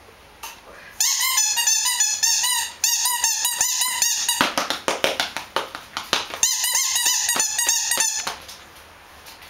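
Dogs yapping in rapid, high-pitched yelps, in two runs of a few seconds each, with a stretch of clattering, scuffling noise between them.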